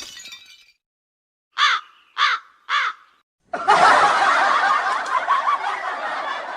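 Three crow caws about half a second apart after a moment of silence, then a long burst of laughter.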